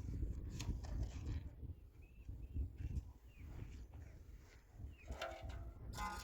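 Small birds chirping over a low rumble, with a louder pitched animal call about five seconds in and again near the end.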